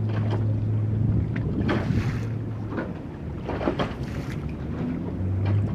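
Boat engine droning steadily on the water, fading somewhat in the middle and swelling again near the end, with wind buffeting the microphone and water splashing in gusts.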